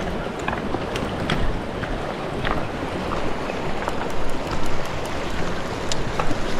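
Steady rush of river current with wind on the microphone, and a few brief splashes.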